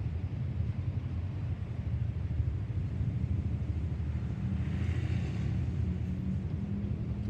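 Low, steady droning rumble of a distant, unseen C-130 Hercules four-engined turboprop. A brief hissing swell rises about five seconds in.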